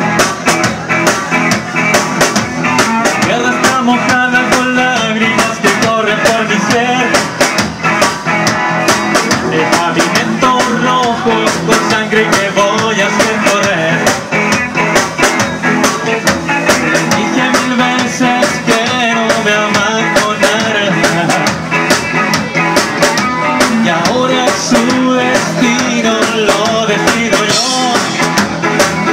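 Live rock band playing loudly: electric guitars, electric bass and a drum kit.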